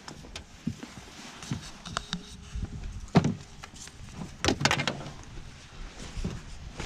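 Scattered hollow knocks and thumps of a small child clambering about in a metal rowboat, the loudest about three seconds in and a quick cluster about a second later.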